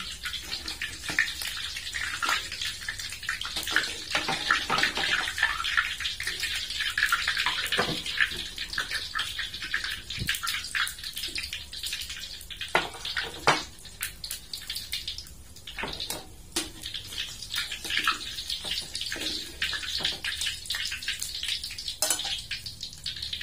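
Hot oil in a wok sizzling and crackling around egg-coated potato fritters as they deep-fry, with frequent popping of the oil and a few louder sharp pops.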